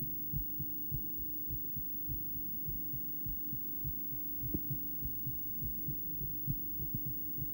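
A woman's heartbeat: a steady rhythm of low thumps over a continuous hum, with a single brief click about halfway through.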